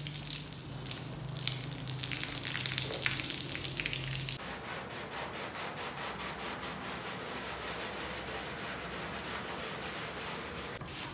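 A jet of water spraying onto a rug, a steady hiss with some sharp spatters over a low steady hum. About four seconds in it changes abruptly to a hand brush scrubbing the wet, soapy rug pile in even back-and-forth strokes, about three a second.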